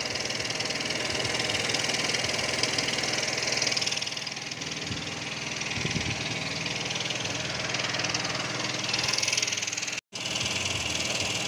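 An engine running steadily. The sound cuts out for an instant near the end.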